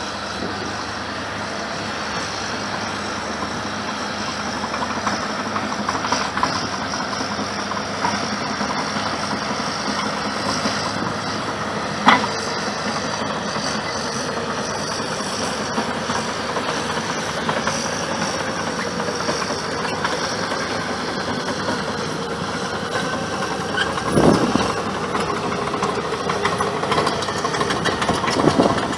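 Diesel engines of heavy earthmoving machinery, a crawler bulldozer and an excavator, running steadily as they shift soil. A sharp knock sounds about twelve seconds in, and heavier thumps come near the end.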